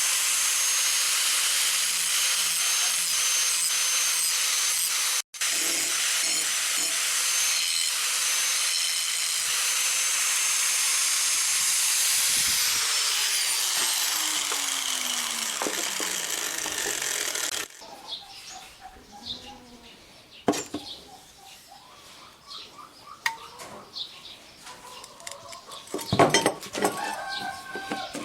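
Angle grinder cutting a bevel into the cracked steel of an old machete blade: a steady high whine with harsh grinding noise. About twelve seconds in it is switched off, and its whine falls in pitch as the disc winds down over the next five seconds. Quieter clicks and clatter of the blade being handled follow.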